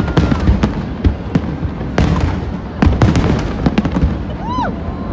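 Aerial fireworks bursting in rapid succession: a dense run of sharp bangs over continuous crackling. Near the end there is a short whistle that rises and falls.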